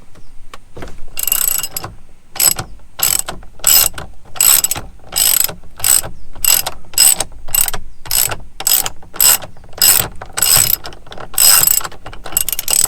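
Socket ratchet with a 13/16 socket loosening the steering wheel's center bolt: the pawl clicks in a short burst on each return swing, repeated steadily at a bit under two strokes a second.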